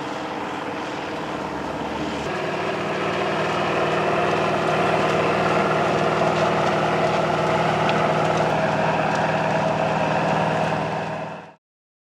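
1994 Riecam RBM 300 sugar beet harvester working, its air-cooled Deutz V8 engine running steadily. The sound grows louder about two seconds in and cuts off abruptly near the end.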